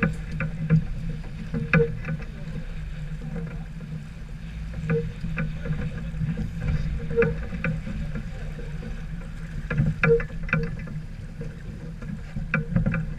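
Sailboat under way: a steady low rumble of wind and water, with scattered sharp knocks and creaks every second or two.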